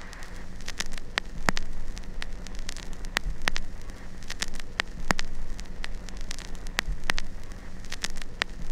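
Crackling static: a steady hiss and low hum with irregular sharp pops, about two a second.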